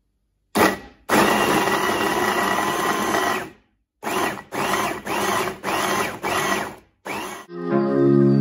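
Electric food chopper blending chunks of tomato. The motor runs steadily for about two and a half seconds and is then pulsed in a series of short bursts.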